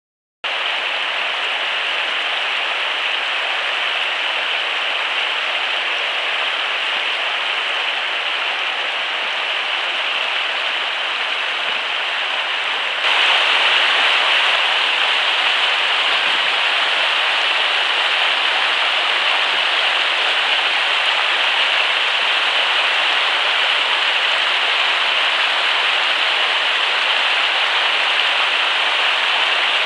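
Fast mountain stream rushing over rocks and small cascades, a steady noise of running water that turns abruptly louder about halfway through.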